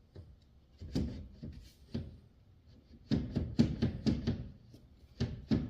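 Irregular knocks and clatter from handling the vent window's glass pane and frame: single knocks about one and two seconds in, a quick run of them in the middle, and two more near the end.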